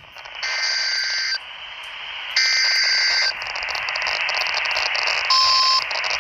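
NOAA Weather Radio broadcasting the digital header of an Emergency Alert System activation for a tornado warning: two harsh bursts of data tones, each about a second long and about two seconds apart, then a steady hiss with a brief steady tone about five seconds in.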